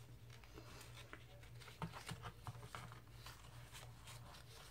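Faint rustling and light taps of small paper tickets and tags being handled and slid into a journal page pocket, over a low steady hum.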